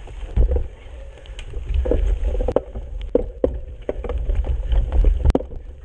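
Mountain bike riding over rough trail: a steady low rumble of wind on the microphone with many scattered sharp clicks and rattles from the bike, one louder knock near the end.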